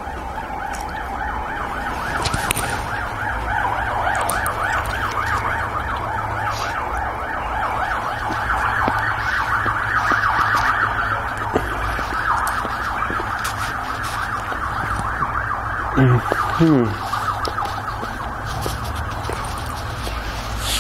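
An emergency-vehicle siren in a fast yelp, swelling to its loudest around the middle and then fading, over a steady low rumble. About sixteen seconds in, a brief loud sound falls in pitch.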